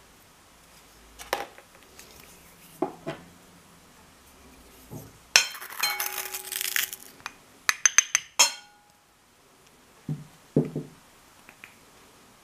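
Measuring spoon and spatula clinking and scraping against a glass mixing bowl and a small ceramic bowl of sugar: scattered soft knocks, a scooping scrape about halfway through, then a quick run of sharp clinks and two more knocks near the end.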